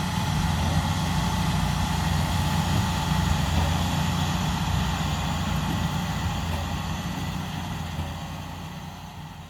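Big John Deere 8RX track tractor's diesel engine running steadily, a low rumble with a faint steady whine above it, fading away over the last few seconds.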